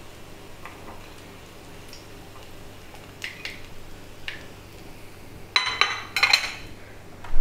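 A metal slotted spoon clinking against a frying pan and a plate: a few light ticks, then a louder clattering scrape about five and a half seconds in and another just after.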